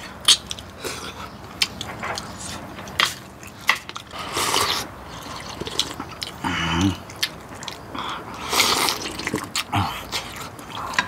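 Close-miked eating of pork-bone soup: chewing and sucking meat off bones, small clicks of spoons and chopsticks on bowls, and soup being slurped, loudest about four and a half and nine seconds in.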